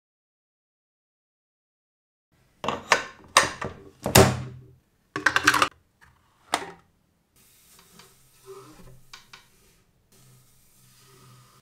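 Over-and-under shotgun being assembled by hand: a run of sharp metal clicks and clacks from the action, barrels and forend latch, loudest from about two and a half to seven seconds in, then fainter handling noise with a couple of lighter clicks.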